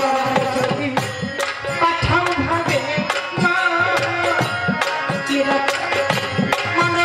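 Baul folk song performed live: a woman sings over hand-drum accompaniment keeping a quick, steady beat.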